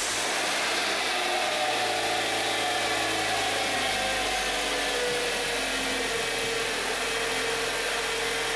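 Kia Sportage 2.0-litre four-cylinder engine idling steadily just after its first start on a newly fitted timing belt. Its pitch eases down a little over the first few seconds as the idle settles, and it sounds pretty good.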